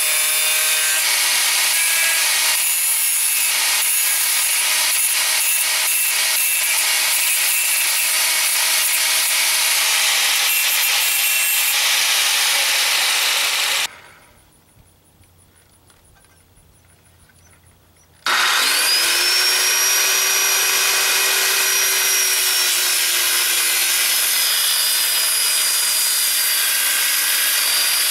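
An angle grinder runs against metal, throwing sparks, with an uneven grinding noise, and stops abruptly about halfway through. After a few seconds of quiet, a corded circular saw starts up with a rising whine and runs steadily, cutting through a sheet of plywood.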